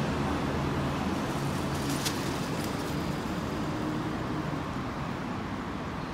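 Road traffic on a city street: cars driving past, with engine hum and tyre noise in a steady wash that eases off slightly toward the end.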